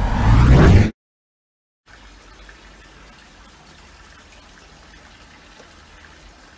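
A title-card sound effect: a loud whoosh that swells and rises in pitch, then cuts off abruptly about a second in. After a second of silence, a steady faint hiss of background noise follows.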